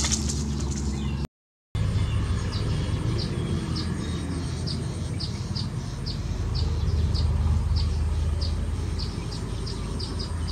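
Outdoor field ambience: a small bird chirping in a quick regular series, about two to three short chirps a second, over a faint steady high insect drone and a constant low rumble. The sound cuts out briefly about a second in.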